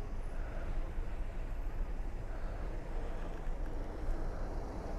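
Pickup truck approaching along the road: a steady low rumble of engine and tyres.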